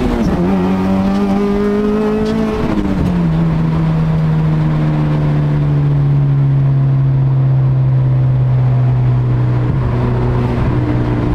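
Honda Civic Si's four-cylinder engine heard from inside the cabin, revving up through a gear with a shift right at the start and another upshift about three seconds in. It then runs steadily, its pitch slowly falling as the car slows.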